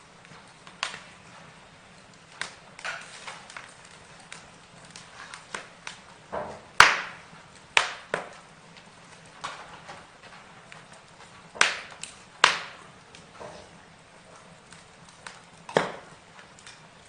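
Burning wood crackling, with irregular sharp pops and snaps: the loudest about seven seconds in, another two close together around twelve seconds and one near sixteen seconds.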